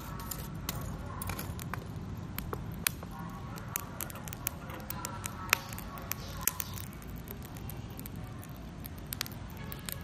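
Burning lump charcoal crackling, with scattered sharp pops, a few louder ones in the middle, over a steady low rumble.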